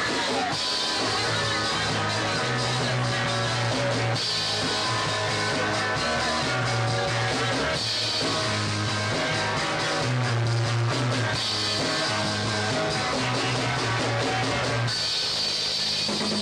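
Live rock trio playing: electric guitar over bass guitar and drum kit, heard through an old audio tape recording.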